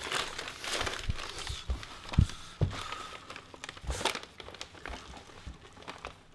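Close-up rustling and crinkling of a paper fast-food bag and a hamburger being handled near the microphone, with a few dull knocks.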